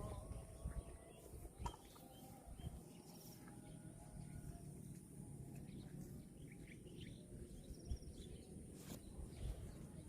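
Faint outdoor ambience with birds chirping now and then over a low rumble and a steady high hiss.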